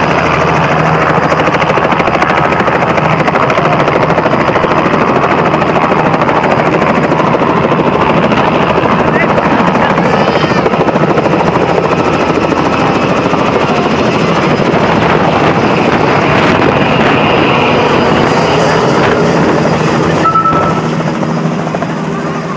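Robinson R66 turbine helicopter running loud and steady, rotor turning through lift-off and a low hover. The sound begins to fade near the end as it climbs away.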